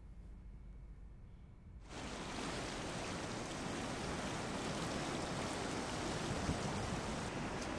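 A faint low hum, then about two seconds in an even, steady rushing hiss starts abruptly and holds.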